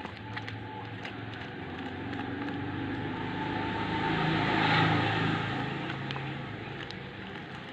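A motor vehicle passing by, its engine and road noise growing louder to a peak a little past the middle, then fading away. Faint small clicks are scattered throughout.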